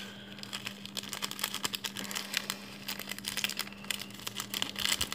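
A small plastic sachet of fried onions crinkling as it is shaken and squeezed out over noodles: dense, irregular crackling throughout, over a steady low hum.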